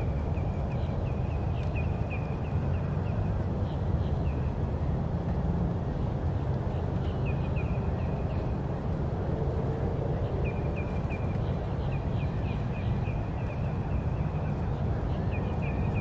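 Outdoor ambience: a steady low rumble with a bird calling in quick runs of short, repeated chirps, four times over, and faint voices of people nearby.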